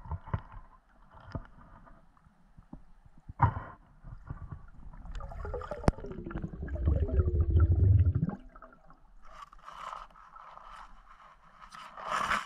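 Underwater sound of a spearfisher swimming through dense waterweed: scattered scrapes and clicks as weed brushes the camera housing. A louder gurgling rush of water comes for about three seconds in the middle as the camera sweeps quickly through the weed.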